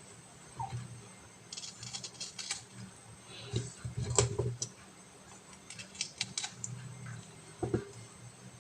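Irregular light clicks and taps of hands handling food, with a few louder knocks about four seconds in and near the end, as marinated chicken pieces are threaded onto barbecue skewers.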